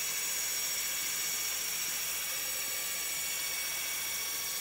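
The lifting column drive of an IBC mixing station running steadily as it lowers the mixer and its impeller shaft into the container, with an even, high-pitched mechanical whine.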